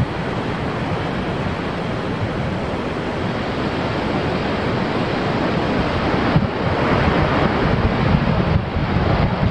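Steady rushing roar of the Vøringsfossen waterfall, with wind gusting and buffeting the microphone, the gusts heavier over the last few seconds.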